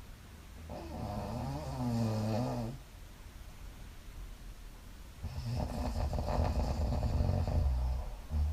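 A woman snoring in her sleep. There are two long snores: a smoother, pitched one about a second in, and a rougher, rattling one from about five seconds in. A short snort comes near the end.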